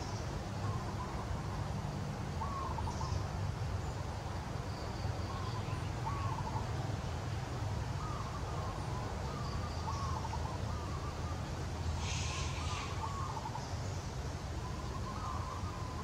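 Short bird calls repeating every second or two over a steady low rumble, with a brief rustling hiss about three-quarters of the way through.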